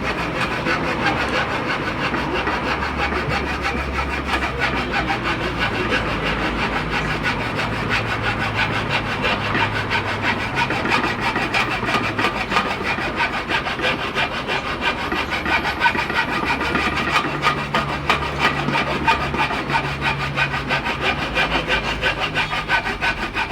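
Rapid, continuous rasping and scraping on a metal pot, many strokes a second without a break, over a low steady hum.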